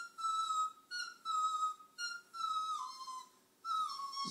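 Small dog howling: four long, high-pitched howls in a row, each held for about a second and sliding down in pitch at its end. The howling is set off by singing on the television.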